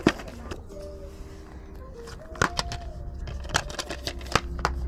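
Sharp, irregular clicks and clacks of hard objects being handled, the loudest right at the start. Faint music with long held notes plays underneath.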